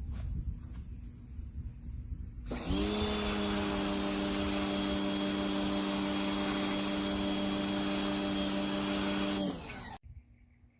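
Hyper Tough 1500 electric pressure washer spinning up about two and a half seconds in and running with a steady motor hum under the hiss of the spray, then winding down near the end. Before it starts there is only a low rumble.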